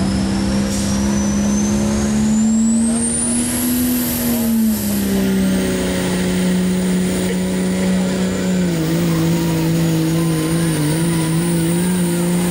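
Pulling truck's diesel engine at full throttle under the sled's load, with a loud turbocharger whistle that climbs in pitch over the first few seconds and then holds high. The engine note sags twice as the sled drags it down, once about four seconds in and again near two-thirds of the way through.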